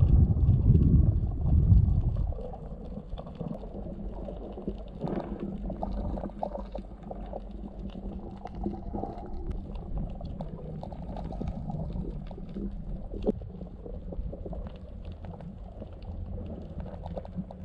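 Muffled underwater sound: a loud rush of moving water for about the first two seconds, then a steady low rumble with faint scattered clicks and crackles.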